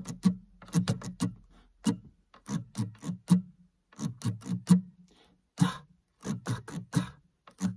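Acoustic guitar strummed in a rhythm pattern of short, clipped strokes with a scratchy attack, played as a demonstration of the song's down-and-up strumming rhythm; the strumming breaks off briefly about five seconds in and then resumes.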